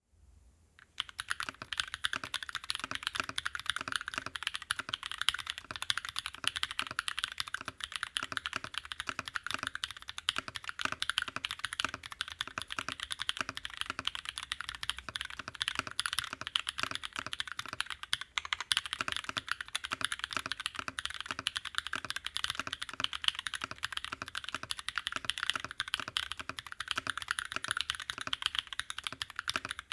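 Continuous typing on an aeboards Constellation mechanical keyboard in top mount, fitted with Naevy v2 long-pole tactile switches. A dense run of keystroke clicks starts about a second in, with a brief pause a little past halfway.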